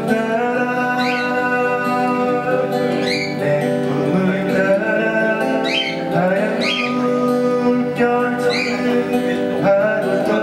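A man singing a Korean song, accompanying himself on a strummed steel-string acoustic guitar.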